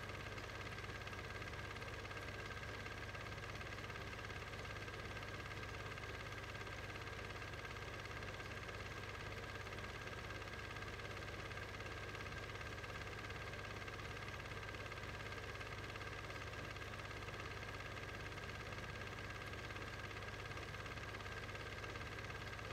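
Steady electrical hum and hiss that never changes: noise laid down in transferring a silent Standard 8 home movie, not sound from the cars on screen.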